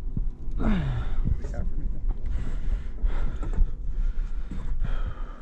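Wind buffeting the microphone, with a person's strained groan falling in pitch about a second in and further indistinct voices.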